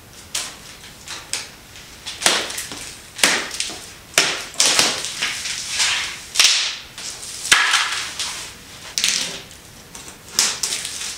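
Plastic shipping straps being taken off a large cardboard box, then its cardboard lid and flaps sliding and being folded open: a string of sharp snaps, scrapes and rustles.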